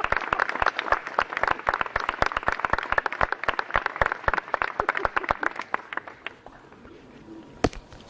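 Audience applauding, the clapping thinning out and dying away about six seconds in, followed by a single sharp knock near the end.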